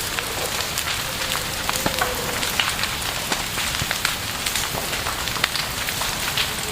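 Campfire burning, wood crackling and popping at irregular moments over a steady hiss, with a faint thin whistle that comes and goes.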